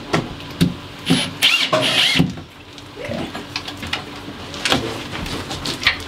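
Cordless drill run in a few short spins, its motor whining up and down, among clicks and knocks of the drill and fittings being handled.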